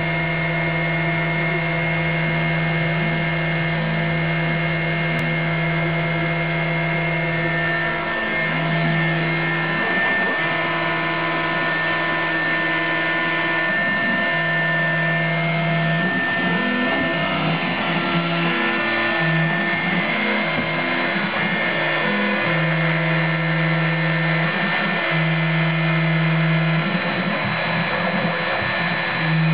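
Proxxon high-speed rotary tool spinning steadily as the spindle of an Emco F1 CNC mill engraving a copper-clad PCB, a whine made of several steady tones. Under it, a low hum from the machine stops and starts every few seconds as the axes move.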